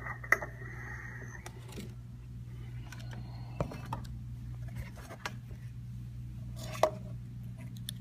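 Handling noise: scattered small clicks and taps as hands move the opened iPod Touch and the camera, with a sharp click just after the start and another about seven seconds in, over a steady low hum.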